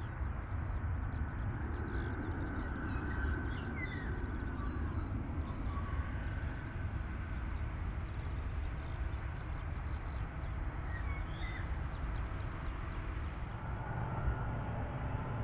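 Steady low outdoor rumble with no clear engine tone, and a few short bird chirps about three to four seconds in and again near eleven seconds.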